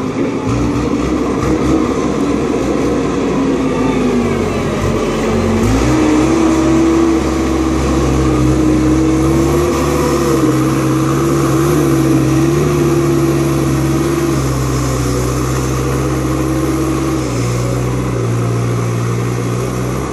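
Merlo telehandler's diesel engine working as the machine drives over a grass silage clamp. The revs dip about four seconds in, rise sharply a couple of seconds later and hold there, then drop back in the last few seconds.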